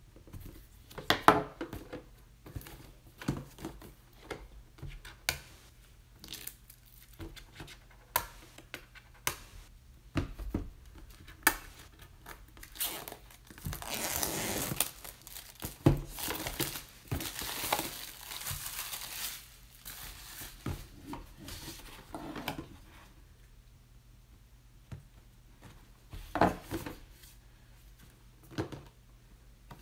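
Plastic shrink-wrap film on a cardboard box being slit with a utility knife and peeled off, crinkling and tearing, with scattered taps and scrapes of the box being handled. The crinkling is densest and longest midway through.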